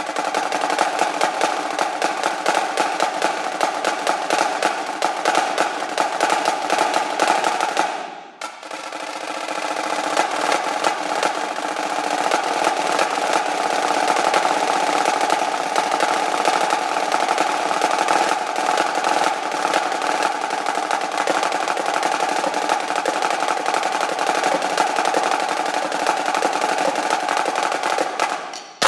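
Solo snare drum played with very fast rudimental strokes and rolls. It breaks off for an instant about eight seconds in, then a roll swells back up and the dense playing runs on until it stops at the end.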